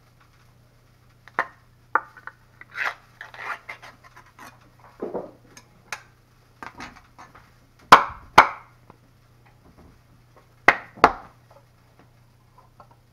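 A can of bacon SPAM being opened and the meat worked out of it: scattered small metallic clicks and scraping, then two pairs of sharp knocks about eight and eleven seconds in, the loudest sounds, as the can is rapped to free the loaf.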